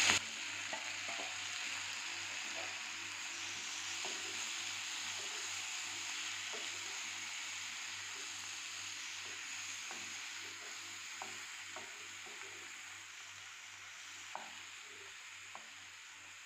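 Chopped tomatoes and sliced onions sizzling in butter in a nonstick frying pan while being stirred with a wooden spatula. The sizzle fades slowly, with a few light taps of the spatula in the second half.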